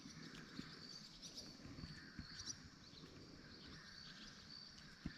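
Faint outdoor ambience: a short high-pitched animal call repeats evenly about once a second, with a few light knocks from handling.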